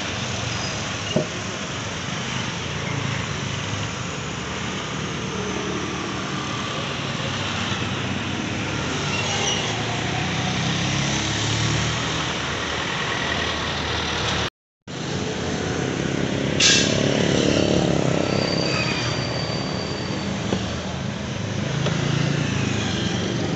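Steady street traffic noise, with vehicles running and passing, and a sharp knock about a second in. The sound cuts out completely for a moment a little past the middle.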